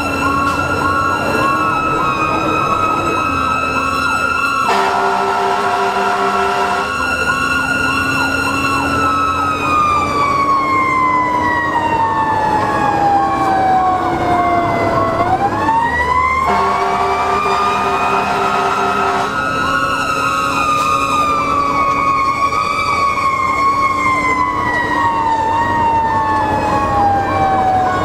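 Sutphen fire engine's sirens running on a response, heard inside the cab. A fast electronic yelp repeats about three times a second over a second siren tone, which holds, winds slowly down, sweeps quickly back up and then falls away again. The air horn gives two long blasts, about five and sixteen seconds in.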